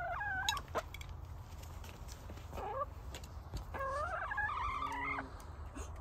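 Hens calling while they feed: a drawn-out, wavering call at the start, a short one midway, and a longer one about four seconds in.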